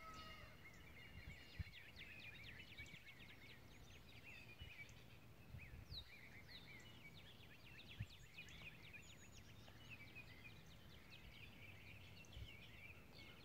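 Faint chorus of small songbirds, many quick high chirps and short falling notes, over a low outdoor rumble, with a couple of soft knocks.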